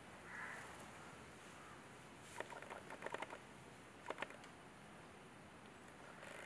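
Quiet room tone broken by two short clusters of faint small clicks, one about two and a half seconds in and another about four seconds in.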